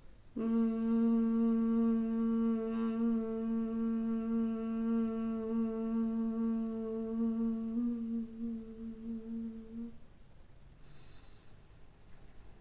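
A woman humming a steady, unbroken low 'mmm' on one pitch: the long exhaled hum of bhramari, the humming bee breath, held for about nine and a half seconds before it stops. A short breath follows near the end.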